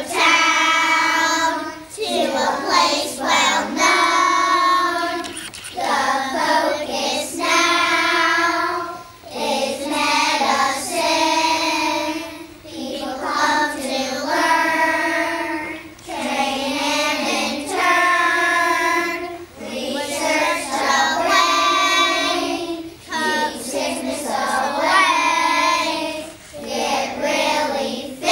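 A group of young children singing a song together, line after line, with brief dips between lines every few seconds.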